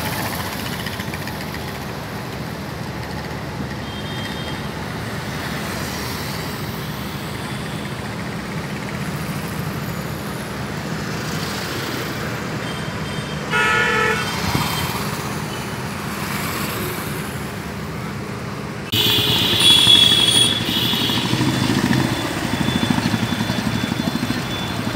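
Road traffic on a city street: cars and motorcycles passing steadily, with a vehicle horn honking briefly about halfway through. Near the end the traffic suddenly gets louder and closer.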